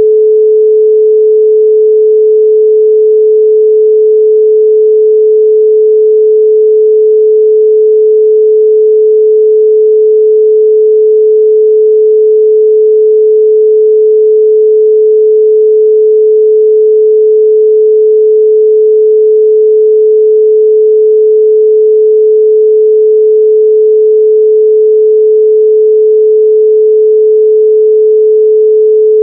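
Loud, steady 432 Hz pure sine tone, a single unwavering pitch held without change.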